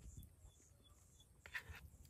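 Near silence: a faint low rumble, with one brief soft scrape or rustle about one and a half seconds in.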